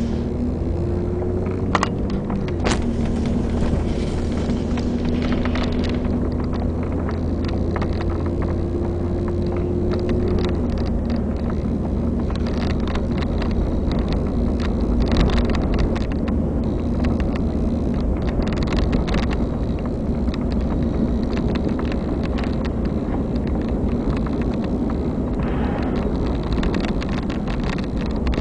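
A car's engine and road noise heard from inside the vehicle as it drives along a snow-covered road. The steady engine hum shifts in pitch about two seconds in and again about ten seconds in, and there are scattered clicks and rattles.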